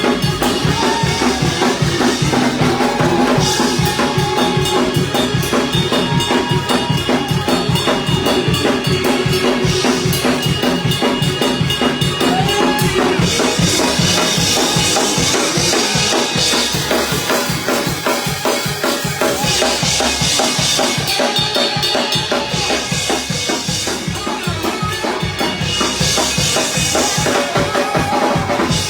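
Live church band playing fast praise-break (shout) music: a drum kit drives a rapid, steady beat of bass drum and snare, with held instrumental tones underneath.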